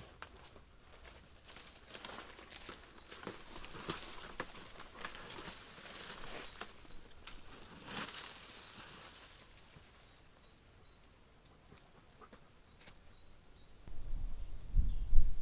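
Footsteps of a hiker and a dog crunching on dry leaves, twigs and stones, fading as they move away, followed by a quiet spell with faint bird chirps. Near the end a loud low rumble comes in.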